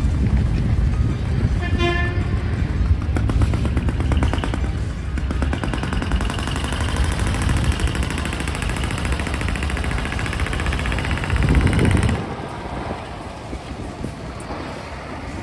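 Decorated trucks driving off, their engines and exhausts running with a fast rattling pulse, and a short horn toot about two seconds in. The sound drops abruptly about three seconds before the end.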